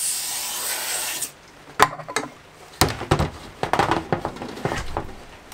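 Aerosol silicone spray hissing onto a plastic KG drain-pipe socket as lubricant, cutting off suddenly about a second in. Then come scattered knocks and scrapes of plastic pipe fittings being handled and pushed together.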